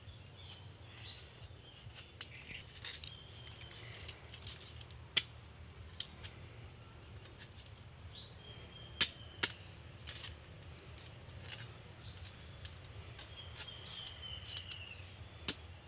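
A knife cutting into a nipa palm fruit cluster: a handful of sharp clicks, the loudest about five and nine seconds in. Birds chirp faintly throughout, with short falling whistles.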